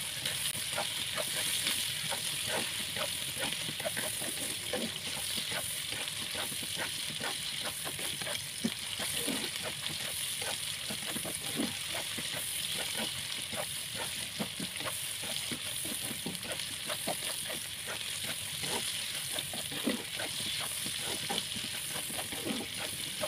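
Salted squid and sliced green and red chilies sizzling in hot oil in a stone-coated wok, with a spatula stirring and scraping the pan in many short strokes.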